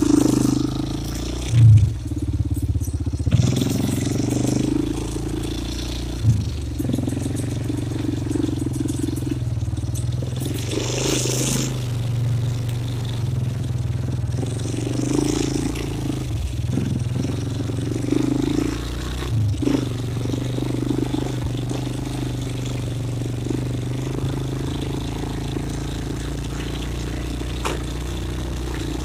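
ATV engine running steadily as the quad is ridden off along a muddy dirt trail, with a loud thump about two seconds in.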